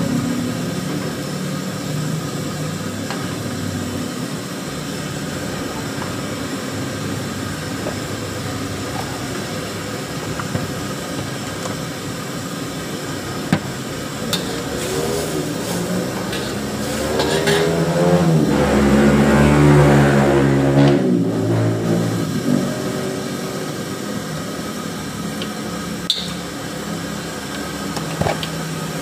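Stir-frying in a steel wok over a gas burner: a steady burner roar and sizzle, with a metal wok ladle now and then knocking and scraping against the wok. About two-thirds of the way through, an engine swells and fades as a vehicle passes.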